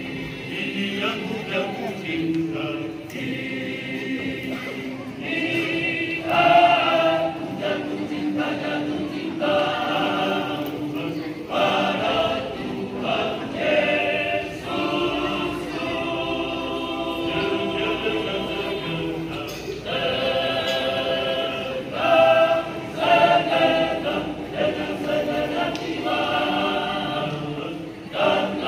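A Masamper choir of men singing a cappella in harmony, with phrases swelling louder and falling back.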